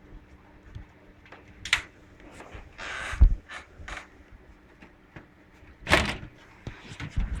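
A desktop PC case's side panel being handled and slid off: scattered clicks and knocks, a scraping slide ending in a thump about three seconds in, and another scrape about six seconds in.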